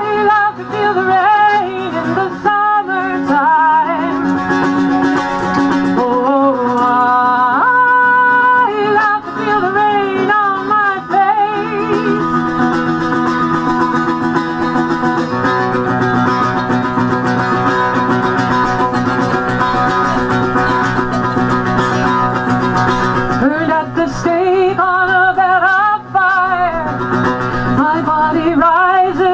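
Live acoustic music: a woman singing over a strummed mandolin-like stringed instrument. The melody glides in the first part and again near the end, with a long steady stretch of held chords in between.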